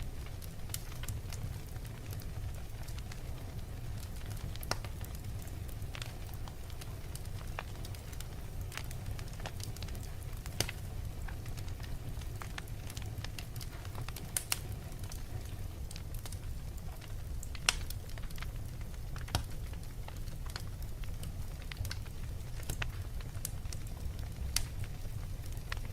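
A fire crackling, with irregular sharp pops and a few louder snaps scattered through, over a steady low rumble.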